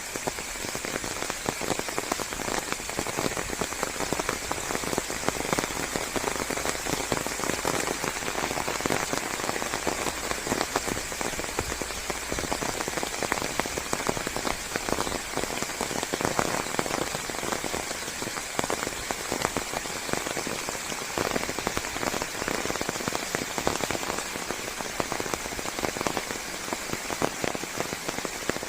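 Steady rain falling on leaves, a continuous hiss dotted with many close individual drop patters.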